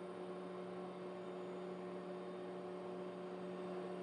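Steady, low electrical hum that holds one pitch, with no other events.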